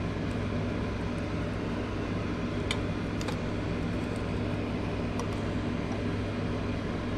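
Steady low hum of a running fan. A few faint light clicks come as the thermostat is worked into its housing.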